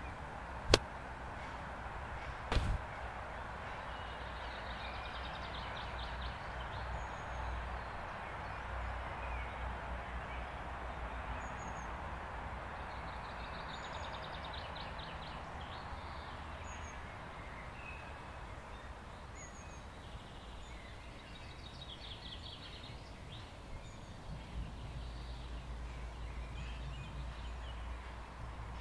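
Garden ambience with a low steady rumble and small birds trilling and chirping now and then. Two sharp clicks, about two seconds apart, near the start are the loudest sounds.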